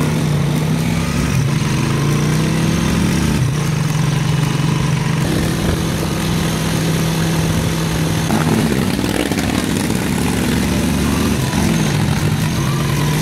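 Motorcycle tricycle's engine running steadily while riding, heard from on board, its pitch dipping briefly a few times.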